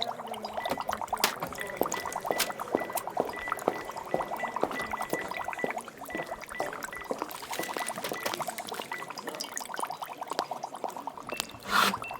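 Laboratory ambience sound effect: liquid gurgling and pouring among small glassware clinks, with an electronic beep repeating about three times a second for several seconds. Near the end a steady electronic tone comes on and there is a louder thump.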